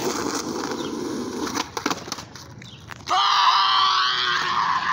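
Skateboard wheels rolling on rough asphalt, then a couple of sharp clacks of the board near two seconds in during an attempted ollie up a curb. From about three seconds in, a long, loud yell.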